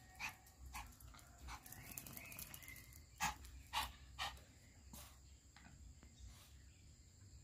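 A dog barking a few short, sharp times, the loudest three in quick succession about three to four seconds in.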